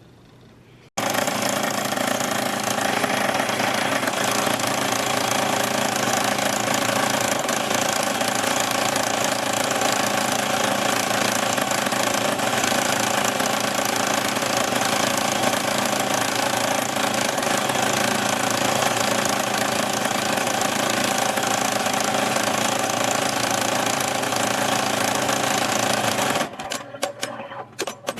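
Embroidery machine stitching: a fast, steady mechanical needle rattle that starts suddenly about a second in and stops near the end.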